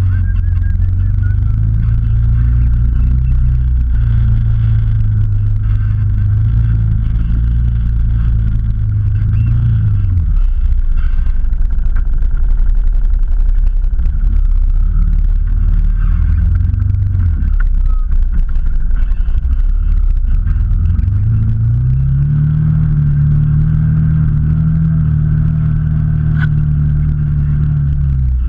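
Off-road vehicle's engine running close under the bonnet as it drives slowly along a forest track. Its pitch holds, drops about ten seconds in, then climbs about two-thirds of the way through and holds higher before falling near the end.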